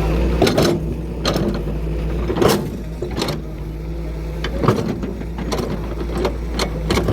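A dozen or so irregular sharp knocks and clicks, a few of them in quick pairs, over a steady low mechanical hum.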